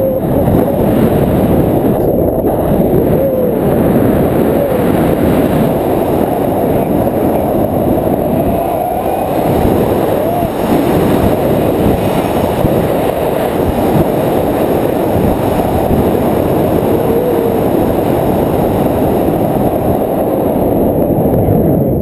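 Strong wind rushing over the action camera's microphone as a tandem paraglider flies through steep banked turns, a dense, steady, low rush, with a few faint brief voice sounds above it.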